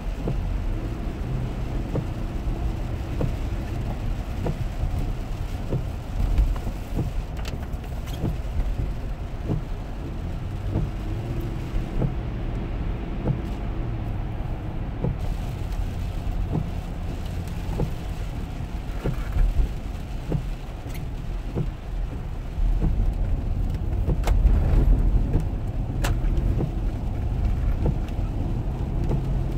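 Cabin noise inside a Lexus LX 470 driving on a wet highway in the rain: a steady low road rumble with the hiss of tyres on water and scattered small ticks. The upper hiss drops away for a few seconds about halfway through, while passing under an overpass.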